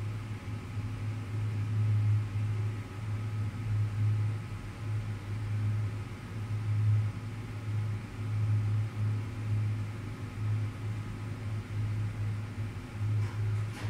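Steady low machine hum, a deep drone that wavers a little in strength, with faint thin high tones above it.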